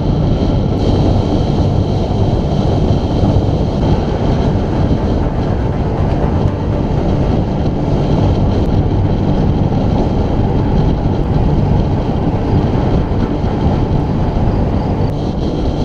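Steady rush of wind buffeting the microphone of a camera on a road bike riding at speed, mixed with the rumble of tyres on tarmac.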